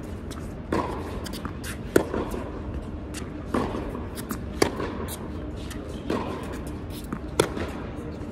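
Tennis rally on an indoor court: tennis balls struck by racquets, alternating between three loud, sharp hits from the near player and softer hits from the far end, about one shot every second and a half, echoing in the hall.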